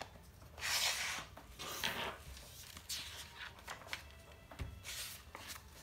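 Paper instruction sheet being handled and rustled, in several short bursts of crinkling.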